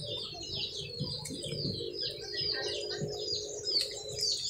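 Many small birds chirping without pause, a dense run of short high falling calls, with a faint steady low hum beneath them.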